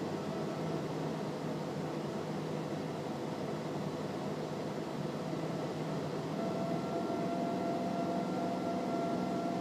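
Steady drone of a Cessna P210R's piston engine and propeller in cruise flight, heard inside the cabin, with a few steady hum tones over an even roar.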